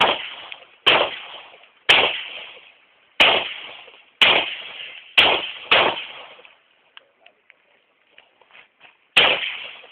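Eight pistol shots from a Glock 23C in .40 S&W, about one a second, the sixth and seventh close together, then a pause of about three seconds before a last shot. Each shot trails off in a long echo.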